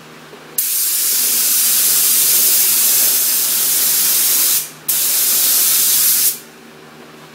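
Air spray gun spraying primer in two long hissing passes. The trigger is held about four seconds, released briefly, then held about another second and a half before cutting off.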